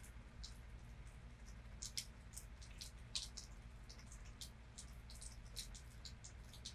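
Scattered, irregular raindrops and drips ticking on a surface, with a couple of louder drops about two and three seconds in, over a faint, steady low rumble.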